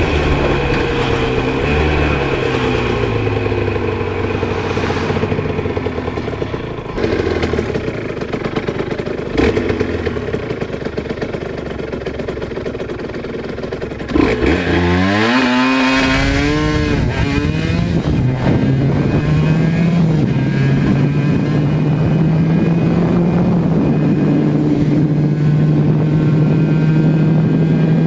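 Aprilia RS125 single-cylinder two-stroke engine under hard riding, heard onboard. Its pitch shifts up and down in steps at first; about halfway it gets suddenly louder and the revs climb steeply, then the engine holds a steady high note.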